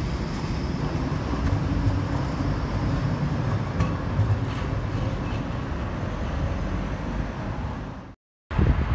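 Linz AG low-floor articulated tram rolling slowly through a street curve, a steady rumble of its running gear along with street traffic. Near the end it cuts off in a brief silence, followed by wind on the microphone.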